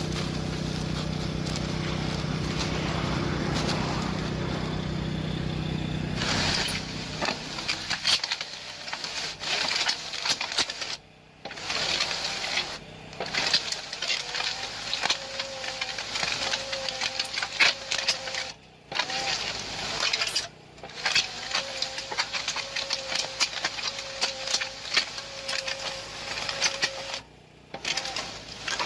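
Construction machinery: an engine running with a steady low hum, then a clattering, crackling machine sound over a faint steady whine, broken by several sudden short silences.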